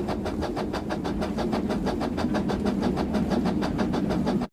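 A battery-powered Thomas toy train running, its small motor and gears clicking rapidly and evenly, about eight times a second. It stops suddenly near the end.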